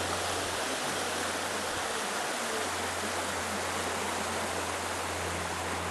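Fast-flowing river running over rapids: a steady, even rush of water.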